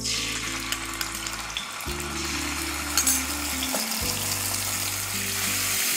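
Ginger-garlic paste sizzling steadily in hot oil in a non-stick kadhai as a spoon stirs it, with soft background music underneath.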